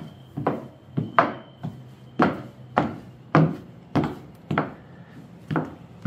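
High-heel footsteps on a hard floor from platform shoes with 8-inch stainless steel heels: a steady walk of sharp heel knocks, a little under two steps a second.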